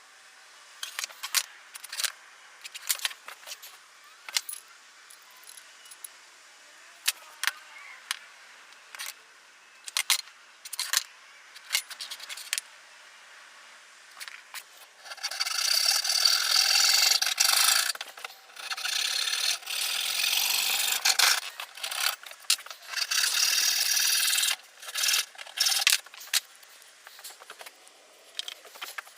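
Scattered knocks and taps of wood and tools being handled, then a hand saw cutting plywood from about halfway in, in three long runs of sawing with short pauses between.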